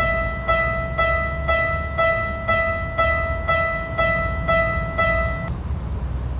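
Electronic level-crossing warning bell ringing, one clear pitched 'kan' about twice a second, stopping about five and a half seconds in, over a steady low rumble.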